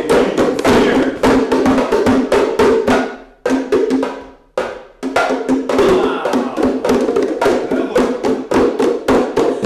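A group of hand drums (djembe-type, called bongos by the teacher) played together in a fast, dense rhythm. The playing dies away about three seconds in and starts up again about five seconds in.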